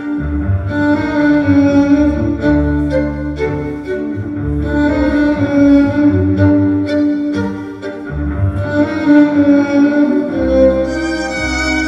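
Tango music played by a live ensemble with bowed strings (cello, double bass and violin) in a marked rhythm with sharp, accented beats.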